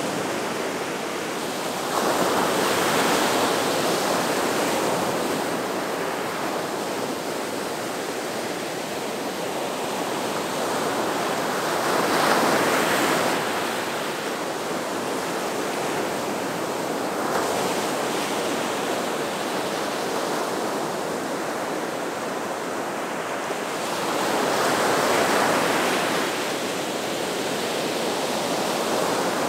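Gulf of Mexico surf: a continuous wash of waves breaking on the beach. It swells louder three times, about two, twelve and twenty-five seconds in.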